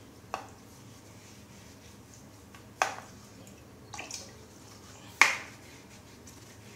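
Drops of liquid falling into the water of a porcelain toilet bowl: about four sharp drips spread over several seconds, the loudest about five seconds in, echoing in a small bathroom.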